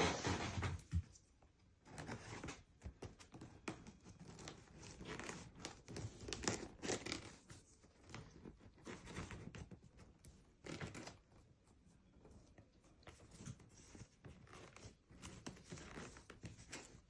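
Irregular tearing, crinkling and rustling of packaging, with occasional light knocks, as a new Dyson vacuum is handled out of its box; the vacuum itself is not running.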